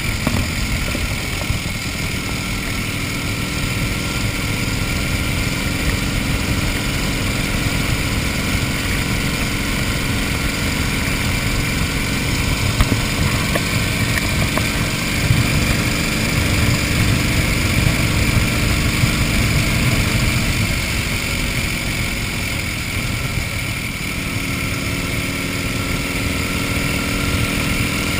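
1931 Indian 101 Scout flathead V-twin running steadily under way at road speed, heard from the rider's seat. The engine note eases slightly about three-quarters of the way through, then holds steady again.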